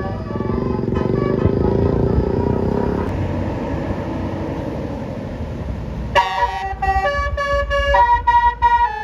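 A heavy vehicle's engine rumbling close by, then about six seconds in a Basuri telolet bus horn starts up. This multi-tone musical horn plays a quick tune of clear notes that step up and down in pitch.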